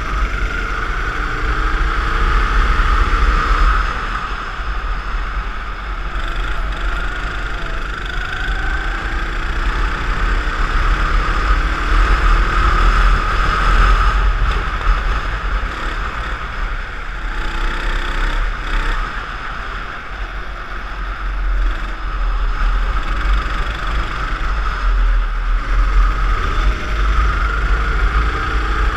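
Go-kart engine running hard through laps of a track, its pitch climbing on the straights and dropping each time the driver lifts for a corner, over a heavy steady low rumble of wind and vibration on the onboard camera.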